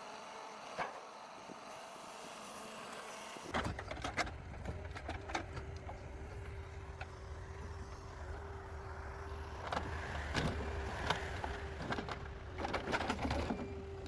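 A heavy forestry machine's diesel engine running steadily with a constant hydraulic whine, starting abruptly about three and a half seconds in. Over it come repeated sharp clunks and knocks, typical of a grapple handling logs; they are densest near the start and again near the end.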